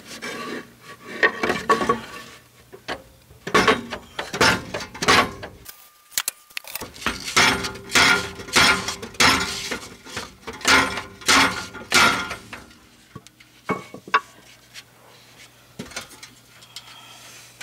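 Metal tool clanking and scraping against a rusted exhaust tailpipe as it is levered back to work the stuck pipe off the muffler. The knocks come in quick bursts, busiest through the middle, then thin out to a few scattered clinks near the end.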